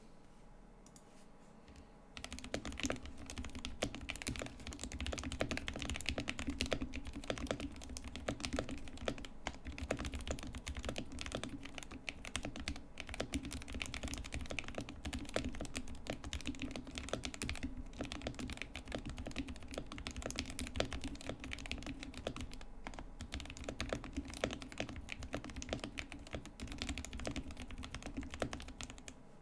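Continuous fast typing on a Womier K66 hotswap mechanical keyboard with linear Gateron Yellow switches lubed with Krytox 205g0 and muted keycaps, giving a dense stream of soft clacks. The typing starts about two seconds in, with a faint steady hum underneath.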